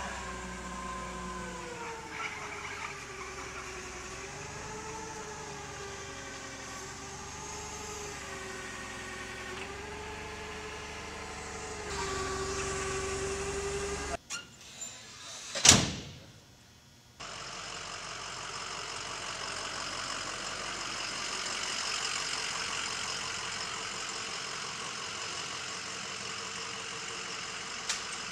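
Clark forklift running, its motor pitch slowly rising and falling as it carries and lifts a load. About fifteen seconds in there is one sharp loud knock.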